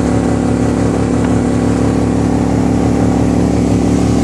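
Boat motor running steadily at constant speed, a loud, even drone.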